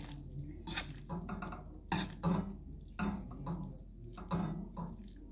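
Metal kitchen tongs clicking and scraping against a stainless steel pan while gripping and lifting wet stir-fried noodles, with soft wet squishing; several sharp clicks come about a second apart.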